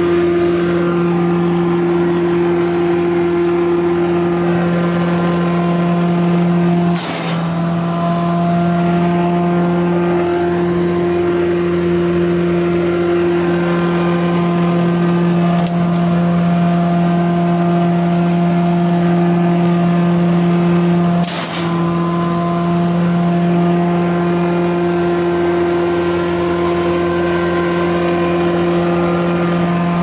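Altec WC126A wood chipper's gas engine running steadily at a constant speed, a loud unchanging drone. It is broken twice by a brief click with a momentary dip in level.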